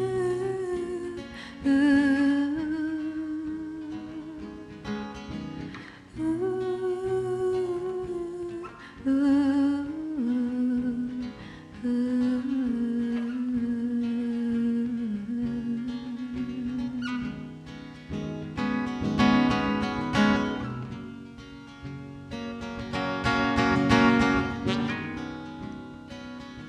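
Acoustic guitar playing under a wordless sung melody of long, wavering notes. In the second half the voice drops away and the strumming grows fuller, swelling twice.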